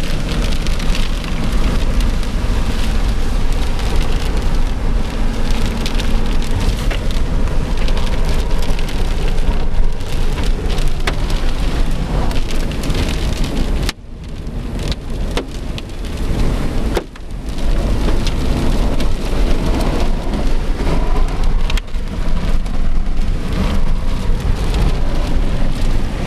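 Heavy rain hitting a car, heard from inside the cabin: a loud, dense hiss that cuts out briefly twice, about halfway through and again a few seconds later.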